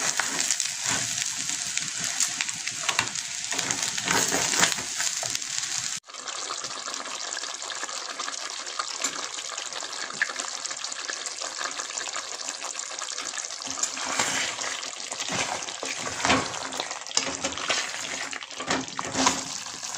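Polao rice sizzling as it fries in oil, stirred with a wooden spatula. About six seconds in it cuts to a pot of chicken roast sizzling steadily while it is stirred with a wooden spatula.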